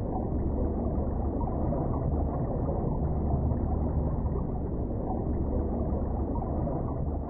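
Muffled underwater ambience: a steady deep rumble with all the high sounds cut away.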